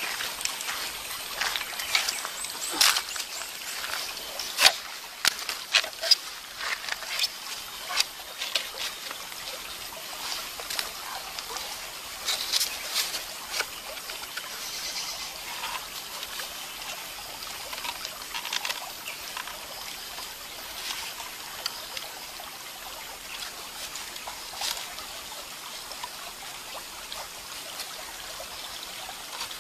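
Shallow stream trickling steadily over stones, with many sharp clicks and snaps, thick in the first half and sparser later.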